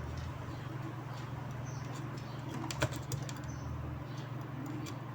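Steady low electrical hum with a few sharp clicks near the middle, like computer mouse clicks.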